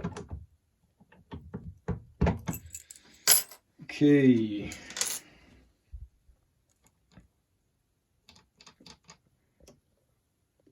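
Metal clicks and clinks of a padlock and its keys being handled and set up for picking: several sharp knocks in the first few seconds, then only faint light ticks.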